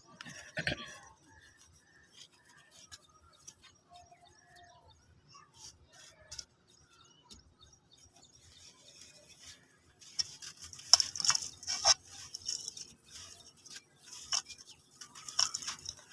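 Crisp crunching and crackling of brittle ash being crumbled. A few scattered cracks at first, then a dense run of crunching about ten seconds in.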